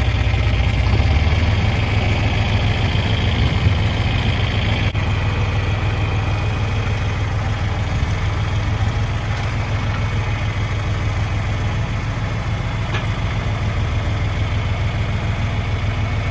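Vintage tractor's engine running steadily at an even speed, with a deep, constant throb.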